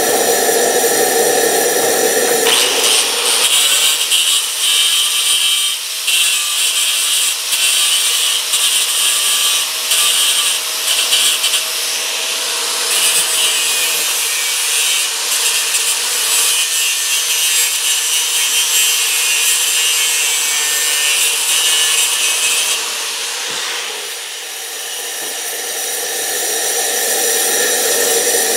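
Stick welding arc crackling and hissing steadily as a 3/32-inch 7018 low-hydrogen rod runs a bead along a ground-out crack in a cast iron boat exhaust manifold. The arc strikes about two seconds in and breaks off a few seconds before the end. A steady machine hum runs before and after it.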